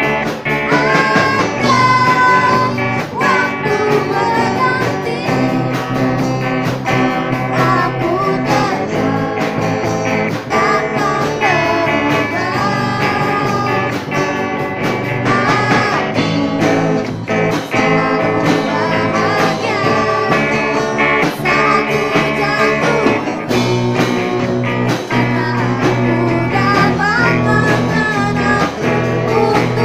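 Live amplified band: two girls' voices singing a melody over electric guitars, bass guitar and a drum kit.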